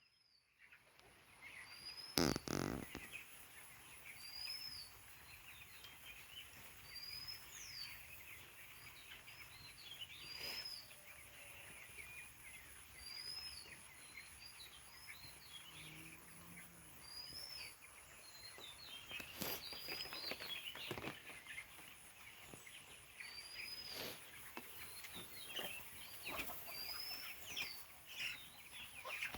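Birds chirping: one short arched high call repeats every two to three seconds over a busy layer of smaller chirps. A loud knock comes about two seconds in, and a few sharp clicks follow later.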